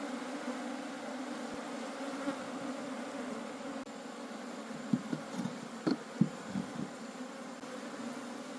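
A honey bee colony buzzing in a steady hum. A handful of short knocks comes between about five and seven seconds in.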